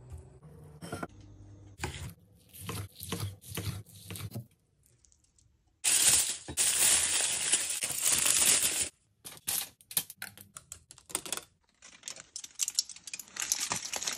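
Aluminium foil being handled: crinkling and rustling in short bursts, then a loud continuous stretch of crinkling in the middle, followed by a run of sharp clicks and more rustling near the end.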